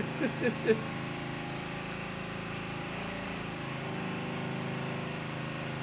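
Generator running steadily, an even engine hum, with a short laugh over it in the first second.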